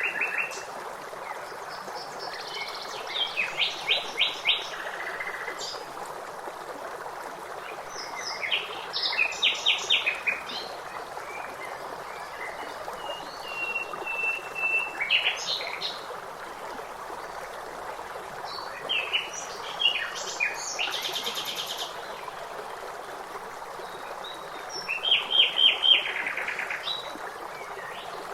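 Songbirds singing in separate phrases of quickly repeated chirping notes, one with a fast high trill about two-thirds of the way in, over a steady rush of running water.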